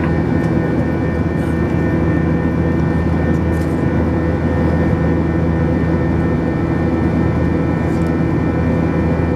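Airbus A321 jet engines heard inside the passenger cabin in flight: a steady, even drone with several steady high tones over it.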